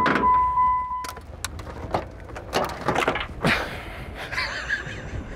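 A steady high beep for about the first second, then scattered plastic clicks and rattling as the air filter box lid and intake duct are unclipped and pulled off a Chrysler PT Cruiser's engine.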